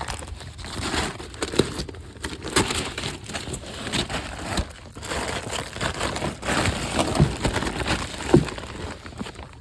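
Packaging crinkling and rustling, with scattered clicks and a few knocks, as a car bumper is handled and pulled from its shipping box.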